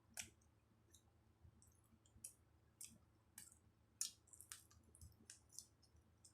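Faint, wet mouth clicks and smacks of a person chewing food, irregular at roughly two a second, the sharpest about two-thirds of the way through.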